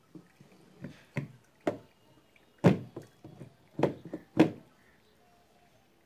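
A new washing-machine gearbox in its plastic housing knocking against the plastic tub base as it is pressed and shifted into place on its mounting. There are seven or eight irregular knocks, the loudest about halfway through and near the end.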